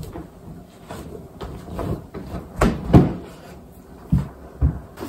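Fabric rustling and a series of dull thumps as a person wrestles a sweater off over his head, the two loudest thumps close together near the middle.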